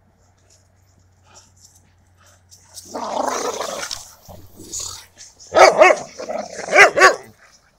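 Dogs play-fighting: a rough growl about three seconds in, then a quick run of loud barks and growls near the end.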